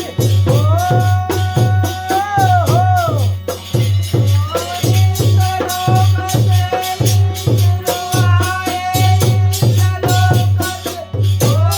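Holi folk music: a steady drum beat of about three strokes a second, with jingling percussion and a long-held melody line that bends in pitch now and then.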